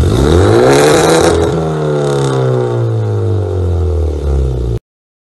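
Car engine revved hard through its exhaust: the pitch climbs steeply to a peak about a second in, with a hiss near the top, then falls slowly back toward idle. The sound cuts off abruptly near the end.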